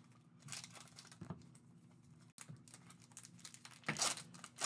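Foil wrapper of a trading-card pack being torn open and crinkled by hand, in short scattered rustles, the loudest near the end.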